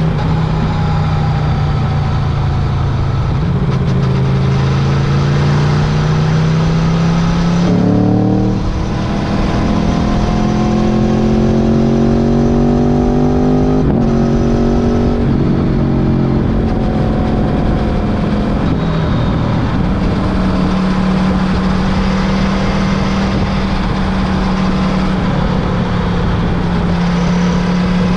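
Motorcycle engine running under way, its note climbing as it accelerates. There are abrupt pitch changes about eight and fourteen seconds in, like gear changes, over a steady rushing road and wind noise.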